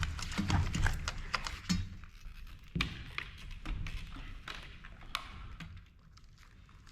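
Scattered clicks, taps and light knocks of hands working inside an opened LCD monitor, pulling internal cable connectors loose. The handling thins out and grows quieter near the end.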